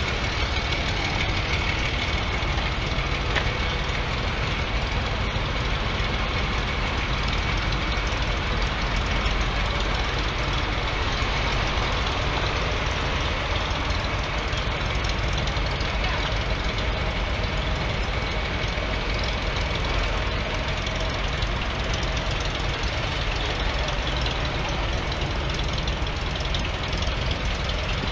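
Tractor engines idling in a steady, unbroken rumble, with a faint high steady tone over it for the first two-thirds.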